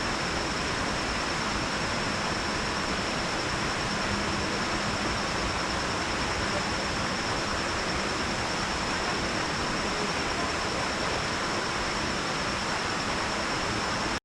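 Water spilling over a lake dam into Blackwater Creek: a steady, even rush with a thin high-pitched tone held above it.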